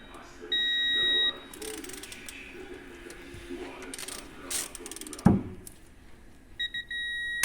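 Ratchet wrench clicking and rasping on the engine, with an electronic beeper sounding three short beeps followed by a long steady tone, twice. A single sharp knock comes about five seconds in.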